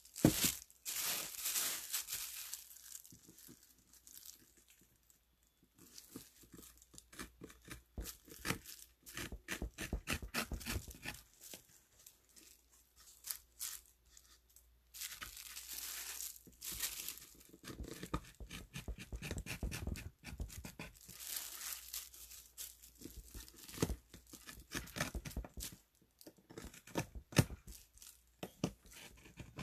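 Hand carving tool cutting into a wooden printing block: irregular runs of short scraping strokes, broken by brief pauses.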